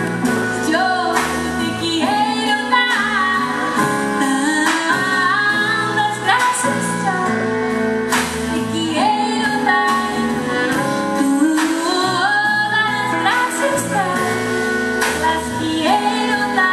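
A woman singing a folk song live, with held notes and gliding phrases, backed by a band of keyboard, electric bass and electric guitar.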